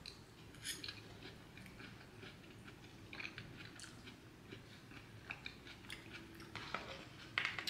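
A person chewing a mouthful of moist apple crumble close to the microphone: faint chewing with scattered small clicks, a few louder near the start and towards the end.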